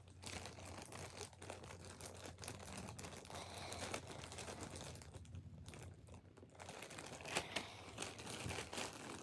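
Faint rustling, crinkling and light clicking as small plastic toy figures are handled and sorted by hand.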